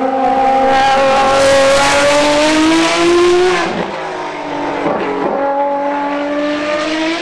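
Ferrari FXX-K Evo's V12 engine running hard as the car passes, its pitch climbing, then dropping abruptly about three and a half seconds in as it comes off the throttle for a bend, then pulling again and rising near the end.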